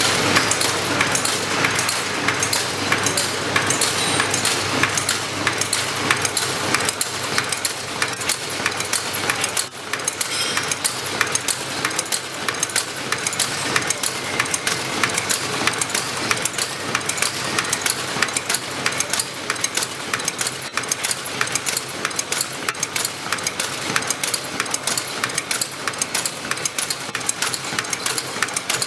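Tea packaging machine running, with a fast, even clicking over a steady mechanical clatter.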